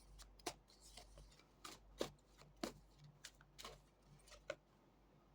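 Tarot cards being shuffled and handled: a faint, irregular string of soft card flicks and taps, about ten in all.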